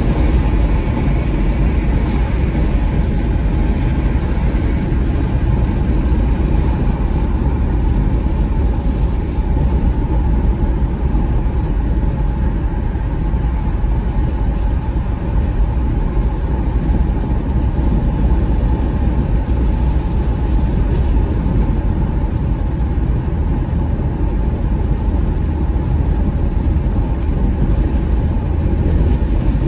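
Steady cabin noise of a 2021 Porsche Macan S cruising on a highway: an even low rumble of tyres on the road and the engine, heard inside the car.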